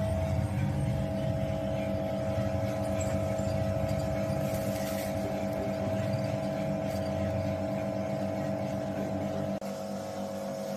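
Drum coffee roaster running mid-roast with its airflow fan switched on: a steady motor and blower hum with a constant whine over a low rumble. The rumble drops away abruptly near the end while the whine carries on.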